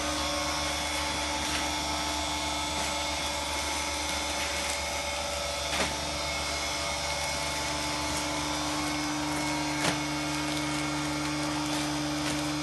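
Lipovak Kar 650 double-chamber vacuum packing machine with gas flush running its cycle: its pump hums steadily, with two brief clicks about six and ten seconds in.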